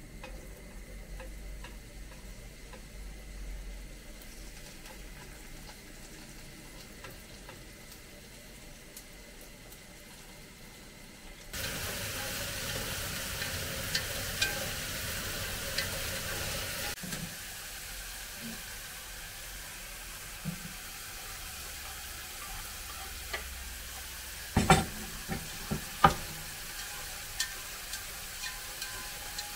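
Food frying in hot oil with stirring. The sizzle grows suddenly louder about twelve seconds in, and several sharp knocks of a utensil against the pan come in the last few seconds.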